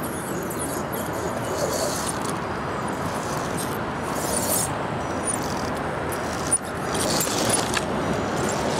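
Radio-controlled scale crawler truck climbing a dirt slope: its small electric motor and gears run steadily under load while soil and stones crackle and rattle under its tyres, with a sharp click about six and a half seconds in.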